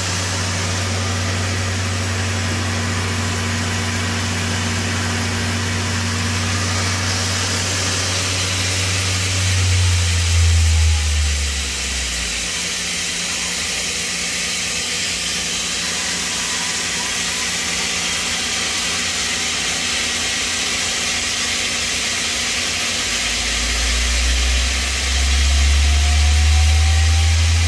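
Mazak Integrex 100-IV ST CNC turn-mill lathe running under power, with a steady hiss and a low hum. About ten seconds in, the low hum sinks in pitch and stops, like a spindle slowing to a halt. Near the end a low hum starts up again and builds, like a spindle spinning back up.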